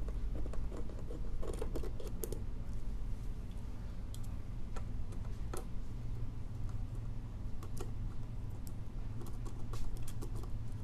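Small screwdriver turning screws out of the scaler unit's plastic cover caps: scattered light clicks and scrapes of metal on plastic, over a steady low hum.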